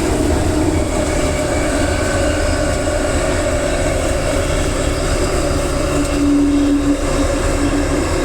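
Electric commuter train running, heard from inside: a steady rumble of wheels on the track with a traction motor hum. A brief steady tone stands out for about a second, around six seconds in.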